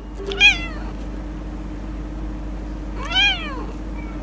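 Ginger tabby cat meowing twice, a short meow about half a second in and a longer one about three seconds in, each rising and then falling in pitch, over a steady low hum.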